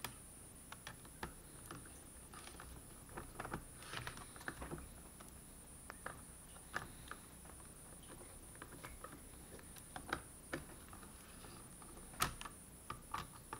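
Scattered light clicks and taps of a small screwdriver and tiny screws against a laptop's plastic case as it is screwed back together, in irregular clusters with one sharper click near the end.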